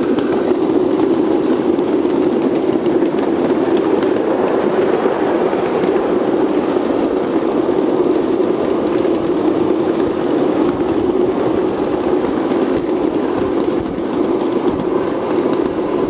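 Ride-on 1½-inch-scale miniature train rolling steadily along its track: a continuous rumble of the cars' wheels on the rails, with faint clicks.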